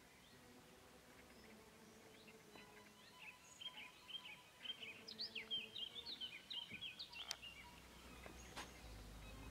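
Faint birdsong: a small songbird's quick run of high chirps and twitters from about three seconds in until shortly before the end, over quiet pond-side ambience. Two sharp clicks come near the end.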